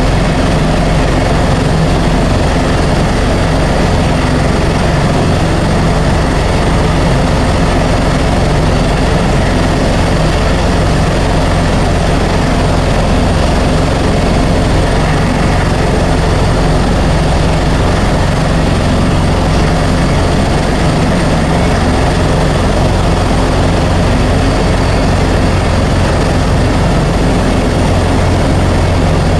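Helicopter engine and rotor noise: a loud, steady drone with a low hum, unchanging throughout.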